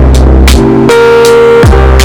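Loud electronic dance music with heavy bass, sustained synth chords and a steady drum beat, including downward-sliding bass sweeps.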